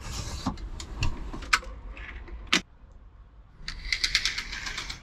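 Curtain runners sliding along a ceiling rail as a curtain is drawn by hand: a quick run of light clicking and rattling in the last second or so. Before it, a few scattered knocks and one sharp clack about two and a half seconds in.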